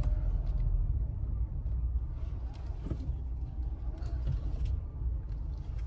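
Steady low rumble of a car heard from inside its cabin, the engine running.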